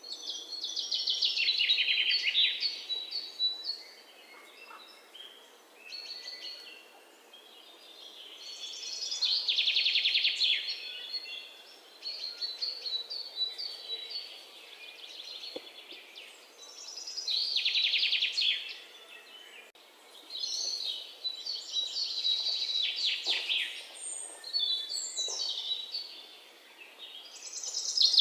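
A songbird singing: repeated song phrases, each a couple of seconds long with a fast trill, separated by quieter gaps of several seconds.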